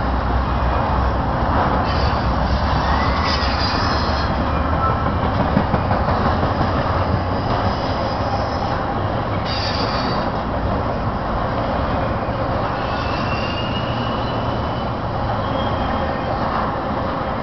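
Piggyback freight cars, highway trailers on flatcars, rolling steadily past on the rails. Their wheels keep up a continuous rumble, with brief high-pitched wheel squeals now and then.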